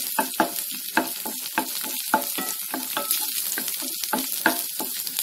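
Shallots and garlic cloves sizzling in oil in a pan, stirred with a wooden spatula that scrapes and knocks against the pan in quick, irregular strokes. This is the sautéing of the onions and garlic until they soften.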